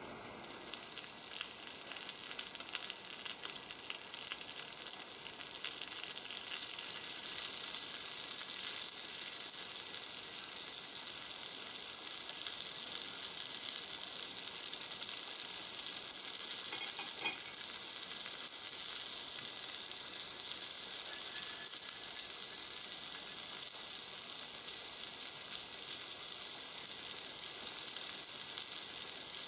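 Food sizzling on a hot pan or plate: a steady, high-pitched frying hiss that builds over the first few seconds and then holds.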